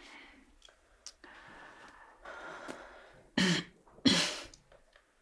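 Quiet room with faint breathing, then two short, audible breaths in quick succession a little over three seconds in.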